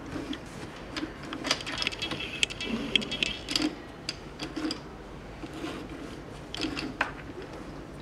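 Small plastic Rubik's Cube pieces clicking and tapping as hands handle them and slide corner pieces into the cube's core: a scatter of faint, irregular clicks.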